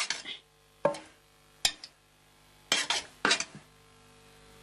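Irregular sharp knocks and clinks, about seven of them, over a faint steady hum.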